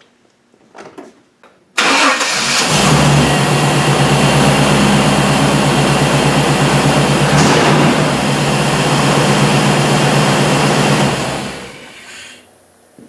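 1998 Chevrolet truck engine cranking briefly and catching about two seconds in, then running steadily: it starts now that the dirty mass airflow sensor behind its crank-no-start has been cleaned. The sound falls away about eleven seconds in.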